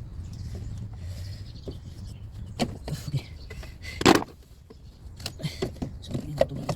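Scattered clicks and knocks over a low steady hum. One loud knock comes about four seconds in, after which the hum falls away.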